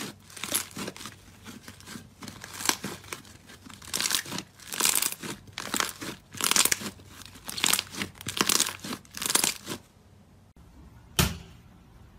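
Hands squeezing and pressing pink slime against a glass bowl: a run of wet crackling and popping squelches, one every half second to a second, that stops about ten seconds in, with one more crackle a second later.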